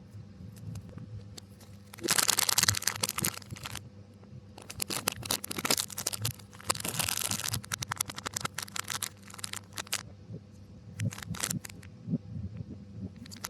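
Plastic snack packaging crinkling and tearing in several bursts of crackle, played backwards.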